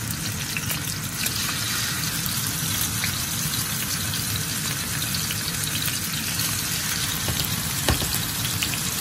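Pork chops sizzling and crackling in hot olive oil in a frying pan as more chops are laid in with tongs, with one sharp knock near the end.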